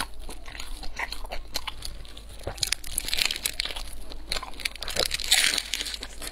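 Close-up crunching and chewing of a crisp fried pastry: a run of sharp crackling crunches, loudest at about three and five seconds in.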